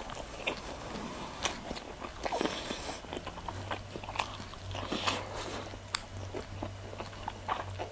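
Close-miked chewing and biting of food, with irregular wet mouth clicks and smacks. A faint low hum comes in about halfway through.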